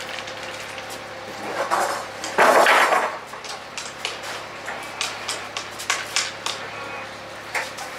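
Metal clinks, knocks and rattles as a cargo strap is handled and hooked around an electric pallet stacker, with a loud rough scrape about two and a half seconds in.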